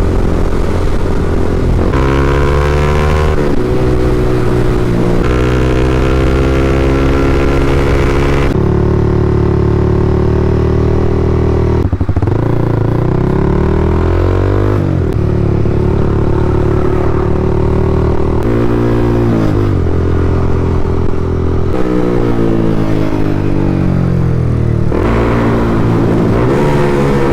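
Honda CBR300R's single-cylinder engine under way, its pitch climbing as it pulls and dropping back at each gear change, several times over, with stretches of easing off and accelerating again.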